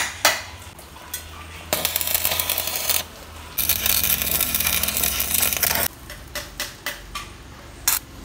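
Stick (arc) welding on angle iron with a coated electrode rod: the arc crackles and sizzles in two runs, of about one and two seconds, with sharp ticks of the arc striking and spatter in between and near the end.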